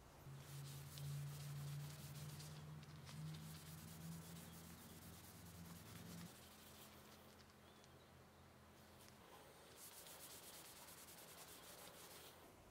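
Hand sanding on cocobolo rosewood: abrasive paper rubbed over the wood in three bouts of quick scratchy strokes. A faint low hum runs underneath and stops about nine seconds in.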